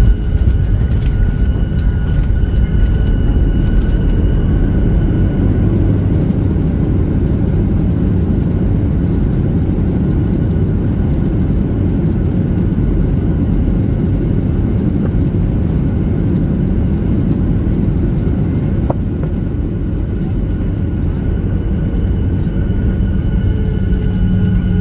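Jet airliner cabin noise during the landing rollout on the runway: a steady loud rumble of the engines and the wheels on the runway, with a faint high whine from the engine that fades after a few seconds and returns near the end.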